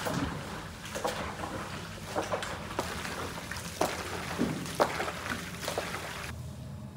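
Gloved hands kneading wet chopped meat and fat in a large plastic tub: irregular squelches and slaps, stopping shortly before the end.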